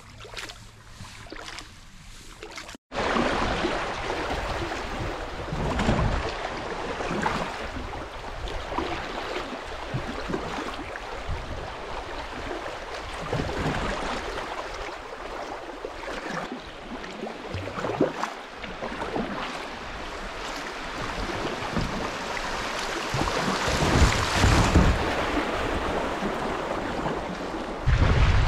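Kayak paddling on a river: a few quiet seconds on calm water, then, after a sudden cut about three seconds in, shallow water rushing steadily over a riffle around the hull, with occasional paddle splashes.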